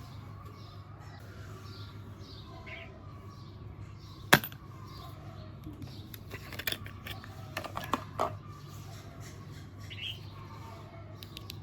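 Several sharp clicks and taps, the loudest about four seconds in and a cluster a few seconds later, over a steady low hum and faint bird chirps.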